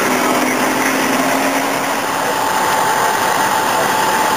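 Military Humvee's diesel V8 engine running close by under steady street noise, with a steady higher tone coming in about halfway through.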